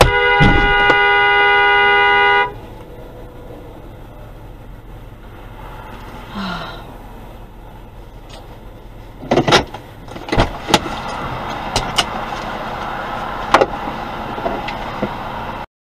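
Car horn held in one long blast of about two and a half seconds. Several seconds later come a few sharp thumps and clicks, then a louder stretch of noise with scattered clicks that cuts off suddenly near the end.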